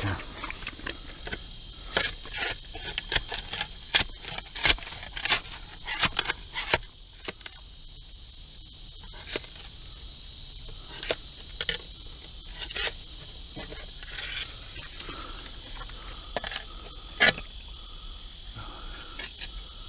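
Hand digging in a dump: repeated sharp knocks and scrapes of the tool in dirt and buried debris. These are frequent in the first seven seconds and scattered after that, with one loud knock a little past the middle. Under them runs a steady, high, continuous insect chorus.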